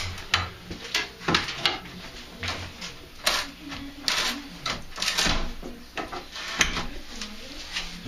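Drywall and wooden wall boards being broken and pried out by hand: a series of irregular knocks, cracks and clatters, about a dozen in all.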